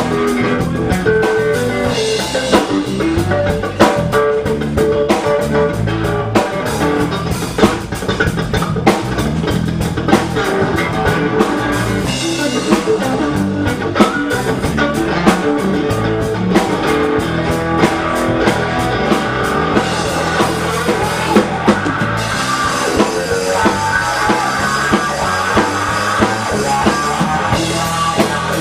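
Live blues-rock band playing an instrumental stretch without vocals: guitar over a drum kit, with sharp drum hits standing out at regular intervals.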